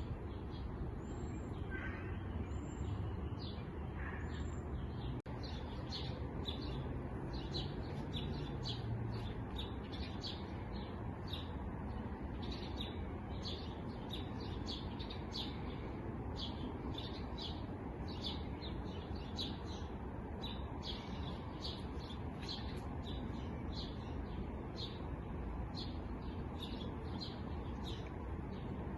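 A chorus of small songbirds chirping rapidly and continuously, over a steady low rumble of background noise.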